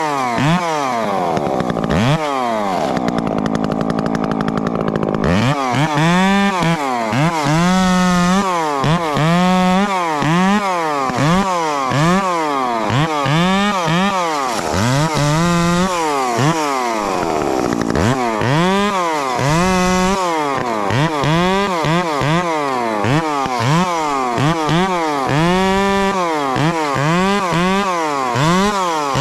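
Husqvarna 350 two-stroke chainsaw revved up and down over and over, about once a second, while limbing a felled tree, with a short steadier stretch near the start.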